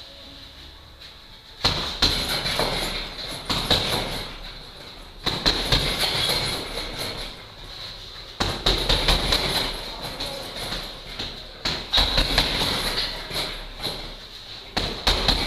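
Gloved punches on a heavy punching bag, thrown in flurries of several hard hits every few seconds. A rattle follows each flurry as the bag swings on its hanging chain.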